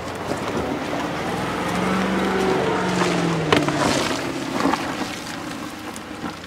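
A Land Rover Defender's engine running at low revs as it crawls over a muddy, rutted woodland track, the hum swelling and falling away in the middle. There is a sharp knock about three and a half seconds in.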